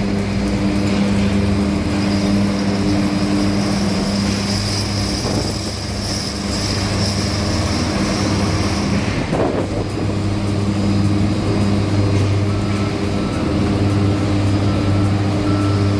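Heavy diesel engine of a bulldozer running steadily, its note breaking briefly about nine seconds in.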